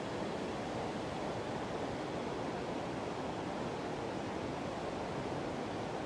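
Waterfall and its rocky stream rushing: a steady, even wash of water noise with no breaks.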